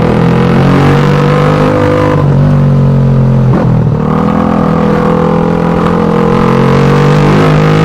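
Suzuki Satria FU 150's single-cylinder four-stroke engine running through its exhaust at fairly steady revs. The revs dip briefly about two to four seconds in, then pick up again and slowly climb.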